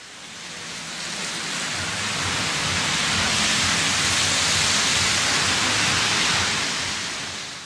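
A rushing hiss of noise that swells in over the first three seconds, holds steady, and fades out near the end, with a low rumble under it from about two seconds in.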